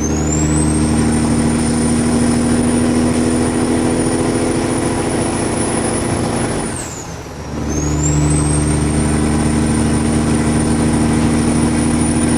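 Kenworth W900 diesel truck engine pulling under load through loud exhaust pipes, with a high turbo whistle that rises as it spools. About seven seconds in, the engine note and whistle drop briefly, as in a gear shift, then both come back and hold steady.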